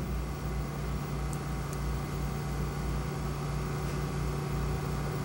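Steady low hum under an even hiss, with no events or changes.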